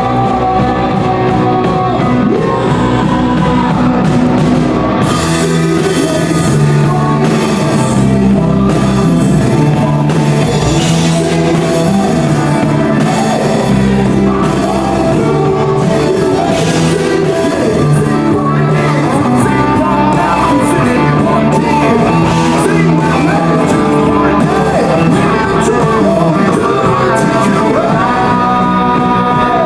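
Rock music with singing, guitar and drums.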